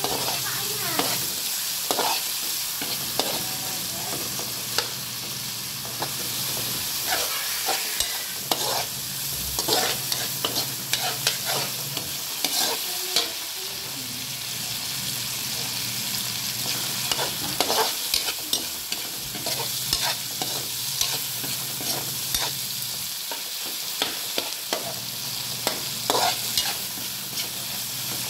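Sliced onion, tomato and garlic sizzling in hot oil in a wok while a metal spatula stirs them, scraping and clinking against the pan many times. A steady low hum runs underneath.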